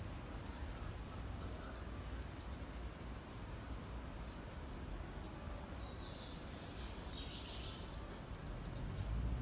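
Birds chirping outdoors: quick, high-pitched chirps in clusters, with a brief lull about six seconds in, over a low steady background rumble.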